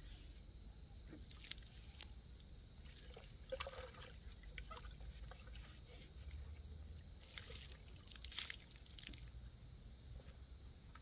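Water poured faintly from a plastic jerrycan in a few short spurts, about two, four and eight seconds in.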